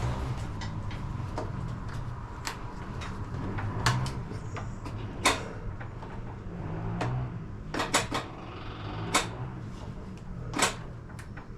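Sharp clicks and knocks at irregular intervals over a low steady hum, from hands working the levers and controls of a V1000 mini skid steer while tracing a fault. The fault turned out to be the dead-man (operator presence) control.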